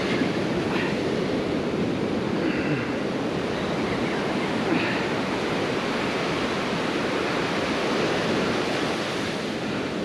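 Ocean surf breaking and washing up the beach: a steady rushing noise with a few faint short sounds over it.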